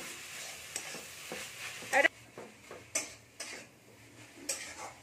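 A metal spatula stirs a grated carrot-and-coconut filling in an aluminium kadai, with a faint frying sizzle under the first two seconds. After that come separate scrapes of the spatula against the pan, about one or two a second.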